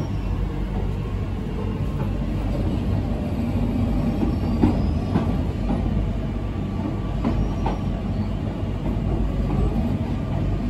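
Queensland Rail electric suburban train heard from inside the carriage while under way: a steady low rumble of wheels on track, with a few clicks and faint brief high squeals.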